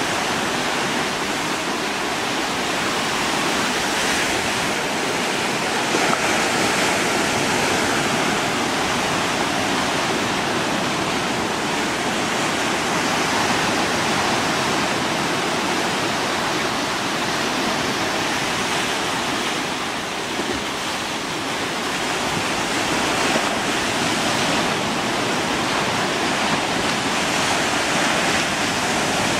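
Steady rushing noise with no distinct events, like moving water or wind, dipping slightly about two-thirds of the way through.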